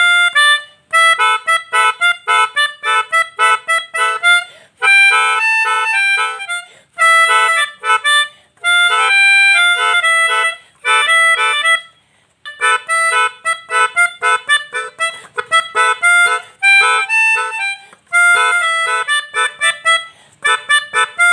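Pianika (melodica) played in short, repeated chord stabs and a few held chords, imitating the multi-tone tunes of Indonesian basuri bus horns. The phrases are separated by brief breaks, the longest about twelve seconds in.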